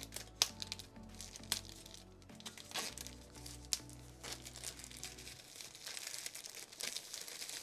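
Clear plastic shrink-wrap crinkling and tearing in sharp crackles as it is peeled off a small cardboard box by hand, over background music.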